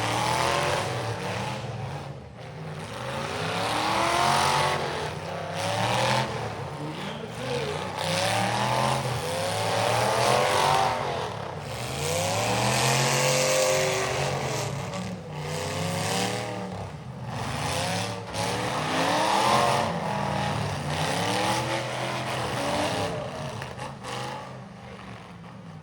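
Several demolition derby car engines revving hard, their pitches sweeping up and down over and over and overlapping, with a few sharp bangs now and then.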